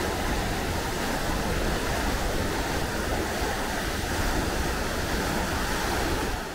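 A powerful river waterfall and its whitewater: a steady, loud rush of falling and churning water.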